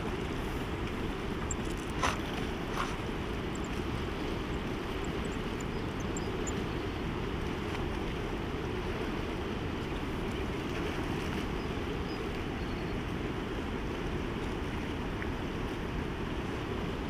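Steady rush of wind on the microphone mixed with the wash of a wind-rippled river, with two short knocks about two and three seconds in.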